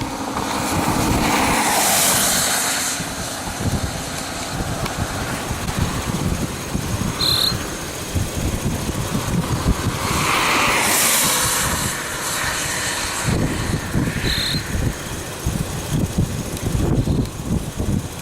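Steady outdoor vehicle and wind noise, with two long whooshes that swell and fade, about two seconds in and again about ten seconds in, and two brief high chirps.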